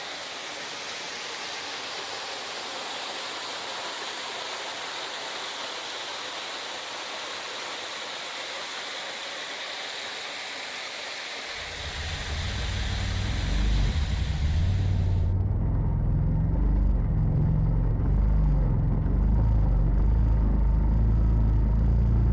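Steady rush of falling water, then about halfway through a side-by-side UTV's engine rumble comes in low and grows louder. A little later the water hiss cuts off suddenly, leaving only the engine running.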